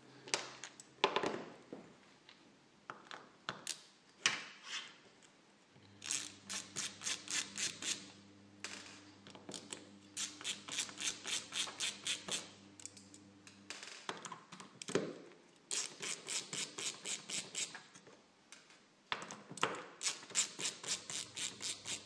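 Screwdriver backing small screws out of a hard drive in its carrier: runs of quick, even clicks, about five a second, broken by short pauses.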